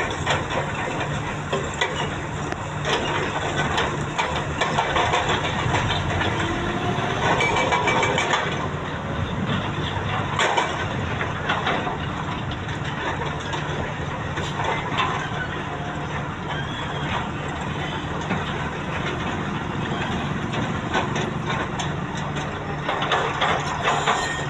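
A diesel excavator's engine running steadily under load, with irregular scraping, clattering and cracking as the bucket digs and drops dirt and rock, and a few short squeals of metal.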